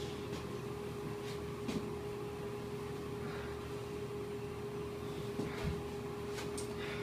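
Steady electrical-sounding room hum with one even tone and a low rumble, broken by a few faint rustles and taps about two seconds in and again between five and seven seconds.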